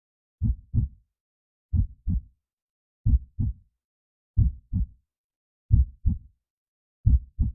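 Heartbeat sound effect: a slow, steady lub-dub, each beat a pair of low thumps about a third of a second apart, repeating about every 1.3 seconds, six beats in all with silence between.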